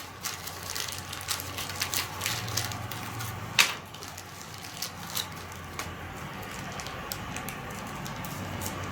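Small grill parts and hardware being handled, a run of light clicks and rattles with one sharper click about three and a half seconds in.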